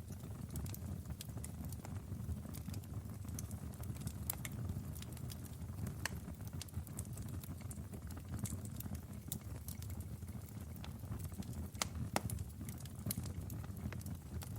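Wood fire burning in a fireplace: a steady low rumble of flames with irregular sharp crackles and pops, a couple of louder pops about midway and near the end.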